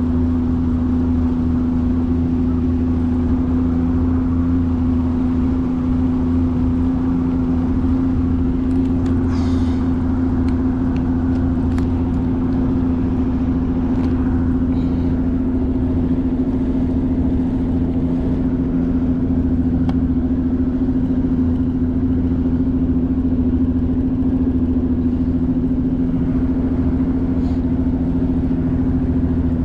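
Boat's outboard motor running steadily at constant speed, a loud, even drone with a strong fixed pitch and a low hum beneath it.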